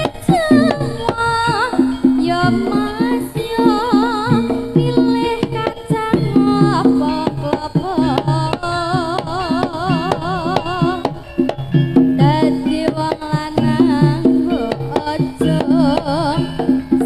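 Javanese jaranan campursari band playing an instrumental passage: dense hand-drum (kendang) patterns under a wavering melody line with vibrato.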